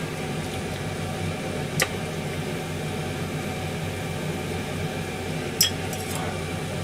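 Steady kitchen hum as a saucepan of broth simmers on a gas hob, broken by two sharp clinks, about two seconds in and again near the end, as seasoning is sprinkled in from a small dish over the pan.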